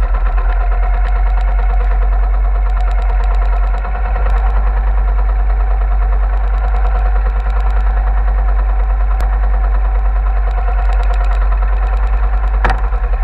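Small outrigger fishing boat's engine running steadily, with an even, pulsing beat. A single sharp knock near the end.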